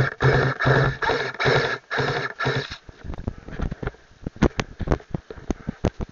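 Airsoft electric rifle firing about six short bursts in quick succession, each a brief motor-driven buzz. The shooting stops about three seconds in, followed by running footsteps crunching through dry leaf litter.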